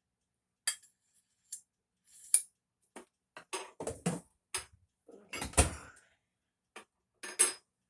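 Dishes and cutlery being handled on a kitchen counter: scattered clinks and knocks, the loudest a heavier thud a little past halfway.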